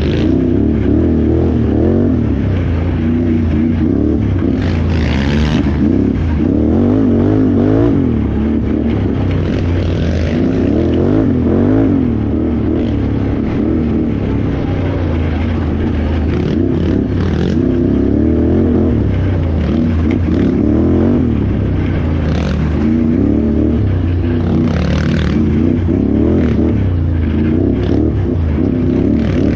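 Can-Am Renegade XXC 1000R ATV's V-twin engine revving up and down continuously as the throttle is worked on and off.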